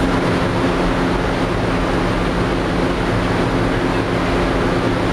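Aluminum stack melting furnace running: a loud, steady roar with a low, even hum underneath.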